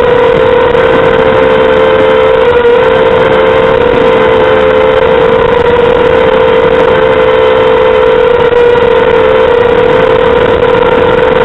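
Mini FPV quadcopter's 2400 kV brushless motors and propellers whining in flight, a loud steady tone that wavers slightly in pitch as the throttle shifts.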